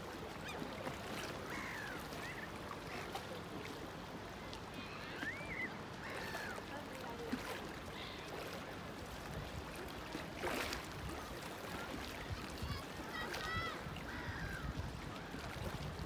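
Waterbirds calling now and then, short rising-and-falling cries, with a cluster of calls near the end. A steady background hiss of open-air wind and water runs under them.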